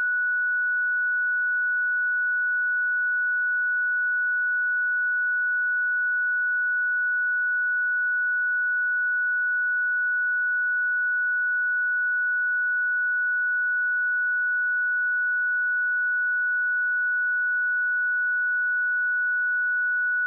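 Continuous 1473 Hz sine-wave test tone, a single steady pure pitch held at an even level throughout.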